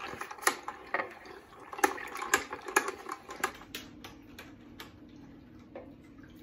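Kitchen clatter around a hand-cranked tomato strainer and stainless steel bowls: irregular clicks and knocks, two or three a second, thinning out about four seconds in. A faint steady hum lies underneath.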